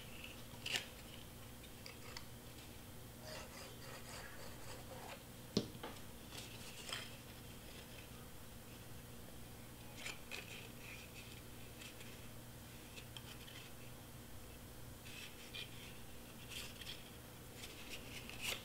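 Faint rustling, rubbing and light taps of cardstock being folded and pressed by hand, with a sharper click about five and a half seconds in, over a low steady room hum.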